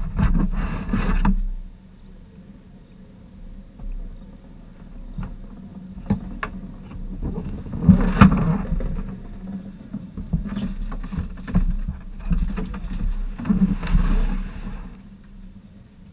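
Human-powered race vehicles passing close by, each pass a swell of tyre and wind noise that rises and falls: one at the start, one about halfway, and one near the end, over a steady low hum.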